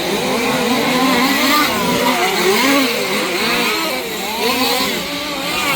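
Several 1/5-scale petrol two-stroke RC off-road cars racing, their engines revving up and down over one another.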